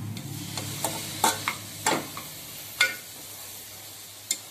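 A steel ladle stirring chopped tomatoes into frying masala in a pressure cooker: about half a dozen sharp, irregular clinks and scrapes of metal on the pot over a faint sizzle.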